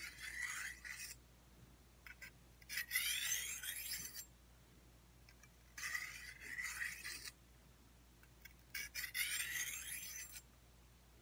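A sharpening stone drawn along the stainless-steel edge of a Bushmaster Cobra Strike machete: four long scraping strokes, each a second or two, with short pauses between.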